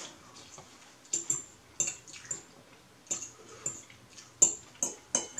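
Someone eating stir-fried noodles: wet slurping and chewing mouth sounds, with a metal fork clinking and scraping against a ceramic bowl, in a string of short sounds about two a second.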